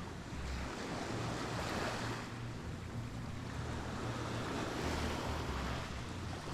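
Sea surf breaking and washing up a sandy beach, swelling and ebbing, with wind buffeting the microphone in low rumbles.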